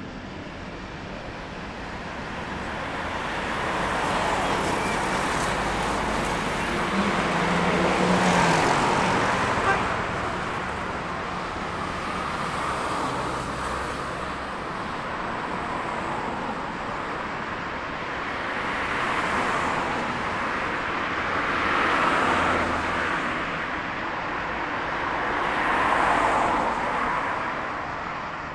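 City road traffic: a steady hum of traffic with several cars passing one after another, each swelling up and fading away. A short sharp tick is heard about ten seconds in.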